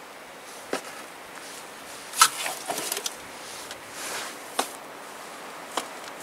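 Hand bricklaying: scattered short knocks and scrapes as bricks and mortar are worked. The sharpest knock comes about two seconds in, followed by a quick cluster of smaller ones.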